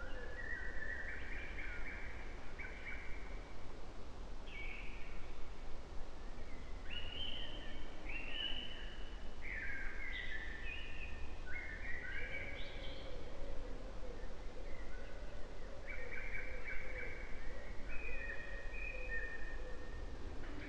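Woodland birds singing: a string of short phrases of clear, high notes, one after another, over a steady low outdoor rumble.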